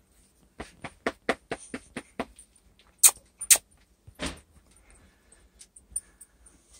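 Labradoodle puppies moving at a doorway: a quick run of light clicks and taps, about four or five a second, then two sharp louder clicks half a second apart and a short rustle.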